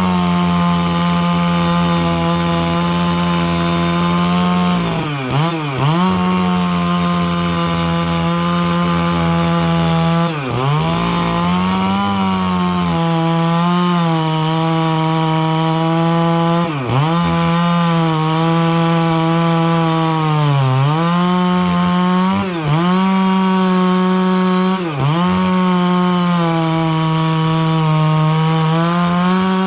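Stihl 660 two-stroke chainsaw with a 36-inch bar held at high revs, rip-cutting lengthwise through a dry larch log. The engine note is steady, with about seven quick dips in pitch that recover at once.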